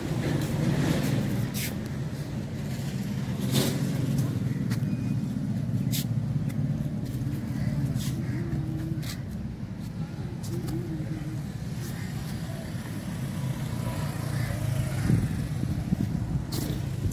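Steady low rumble of road traffic, with a handful of sharp clicks scattered through it.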